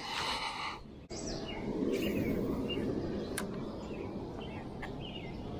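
Small birds chirping in short, quick downward notes, over a steady rushing background noise; the background changes abruptly about a second in.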